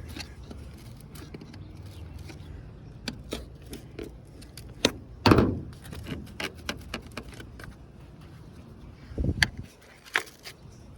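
Scattered clicks and knocks of a trim piece on a car body being pried loose with a hand tool, with one louder knock and scrape about five seconds in and another cluster near nine seconds, over a steady low hum.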